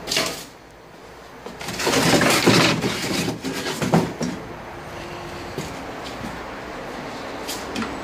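Handling noise as objects are picked up and moved: a loud rustle lasting about a second and a half, then a couple of sharp knocks, then quieter shuffling.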